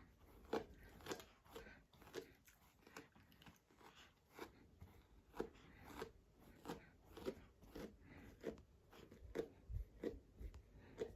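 Faint, short scratchy strokes of a brush being drawn through a dog's fur, roughly one or two a second and somewhat irregular.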